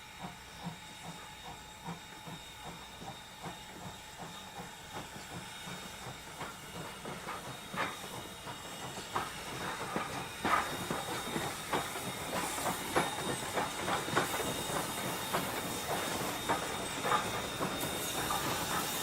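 Train running on rails: a steady hiss with a regular clicking of wheels over the track, growing louder and quicker through the second half.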